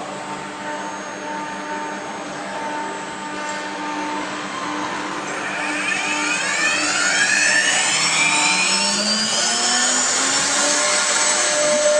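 CNC router running an automatic engraving job: the spindle whines with steady tones over machine noise. From about halfway the sound gets louder, with several tones sweeping upward in pitch as the machine's axes move.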